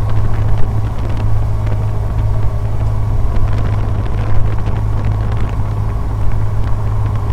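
Steady drone of a Cessna 150's Continental O-200 four-cylinder engine and propeller in cruise power, heard from inside the cockpit as a constant low hum with a faint steady tone above it.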